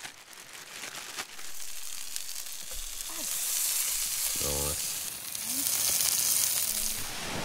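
Taco-seasoned red emperor fillets sizzling in oil in a frying pan, the sizzle swelling about a second in and growing louder through the second half.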